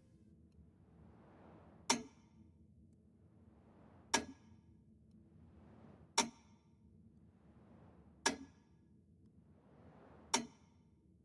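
Metronome ticking slowly, five sharp clicks about two seconds apart, each with a short ring. A faint hiss swells and fades between the ticks.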